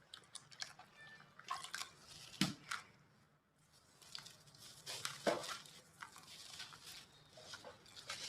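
Gritty chunks of white cement being crumbled: irregular crisp crunches and crackles, with two louder crunches about two and a half and five seconds in.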